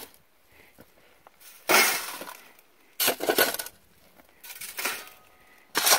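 Metal shovel scraping up gravelly sand off bedrock and tipping it onto a hand-held drywasher's metal screen, in several short gritty crunches about a second apart.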